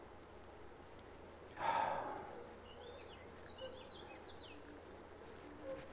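A short, sharp breath out through the nose about a second and a half in. After it a small bird chirps rapidly for a couple of seconds over faint steady outdoor background noise.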